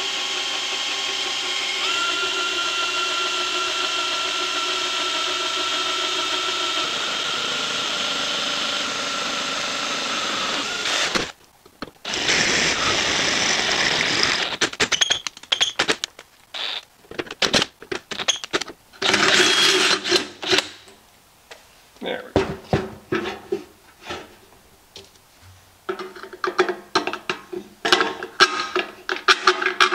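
DeWalt cordless drill running steadily as a twist bit bores a pilot hole through the thin steel lid of an ammo can, stopping abruptly after about eleven seconds. A larger bit then enlarges the hole in short bursts of drilling. Near the end come quick light metallic clicks and rattles from handling the hole and the steel shavings.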